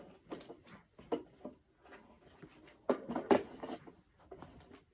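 Rustling and light clicks and knocks from handling an animated Santa figure's fabric costume and frame, with a cluster of sharper knocks about three seconds in.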